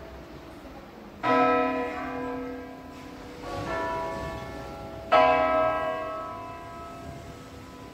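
A five-bell church peal tuned in B rings in concert from a bell tower. Heavy bell strikes come about a second in and again about five seconds in, with a softer strike between them. Each strike rings on and slowly dies away.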